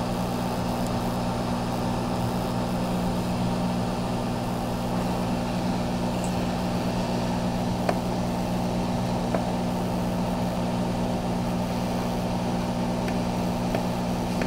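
Aoyue hot air rework station blowing steadily, a constant hum with a rush of air, while its nozzle heats a MOSFET on the ECU board to reflow the solder beneath it. Two faint ticks come about halfway through.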